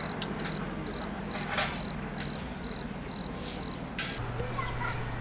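Cricket chirping: a short, high chirp repeating about twice a second, over a steady low hum.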